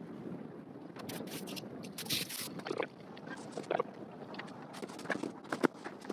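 Knocks and clicks of fish being handled and gutted on a plastic cleaning tray on a small boat, with a brief hissing noise about two seconds in and a sharp knock near the end. Under it, the steady wash of water and wind.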